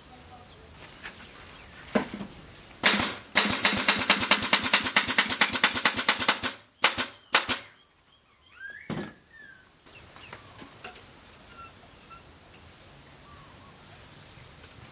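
Pneumatic nail gun firing into MDF panels: a single shot, then a fast even string of shots, about ten a second for around three seconds, then three more single shots.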